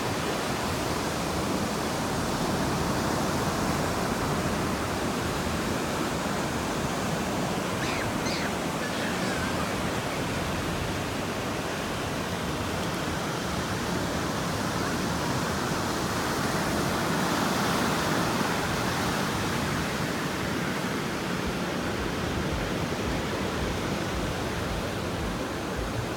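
Steady rushing noise of ocean surf breaking on a sandy beach, mixed with wind on the microphone.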